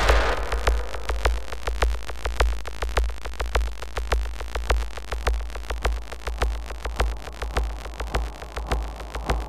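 Minimal micro-industrial electronic music: a steady low bass pulse under a quick, repeating pattern of sharp synthetic clicks, with a wash of noise dying away in the first half second.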